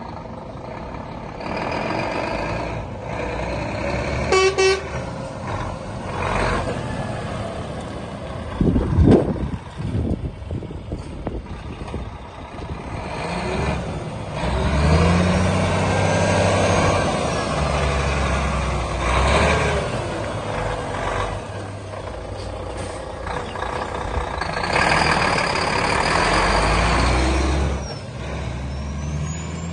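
A Volvo FH 500 tractor unit's 13-litre six-cylinder diesel runs as the truck manoeuvres at low speed, the engine note swelling louder twice as it drives close. A few air-brake hisses come in between.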